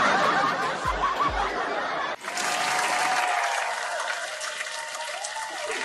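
Canned audience laughter and applause, a laugh track following a punchline. About two seconds in, the sound cuts abruptly to a second stretch of laughter and clapping.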